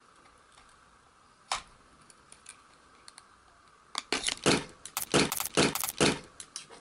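A few sharp clicks, then a quick flurry of clicking and light rattling from about four seconds in, like small hard objects being handled.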